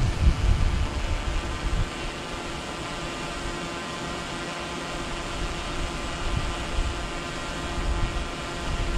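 Hobby quadcopter drone's propellers whirring at a steady pitch in flight, with low wind buffeting on the microphone in the first couple of seconds and again near the end.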